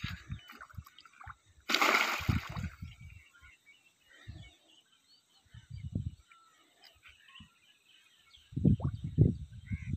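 A single splash of water about two seconds in, from a fish being handled in shallow water at the water's edge, followed by small sloshes.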